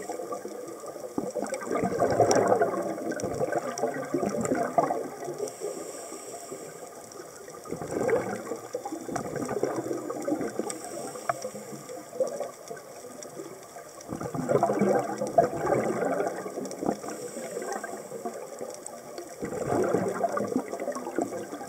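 Scuba diver's exhaled bubbles gurgling out of the regulator in four bursts about six seconds apart, with quieter underwater crackling between breaths.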